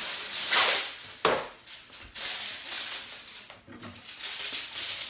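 Aluminium foil crinkling as a burrito is wrapped in it, with a sharp knock about a second in and lighter crackling and clatter after.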